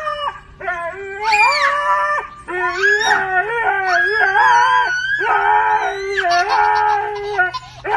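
Husky howling in long, wavering calls, with a toddler howling along at the same time so that two voices overlap.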